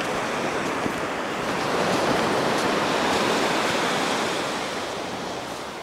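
Small waves washing onto a sandy beach, with wind; the wash swells about two seconds in and eases off toward the end.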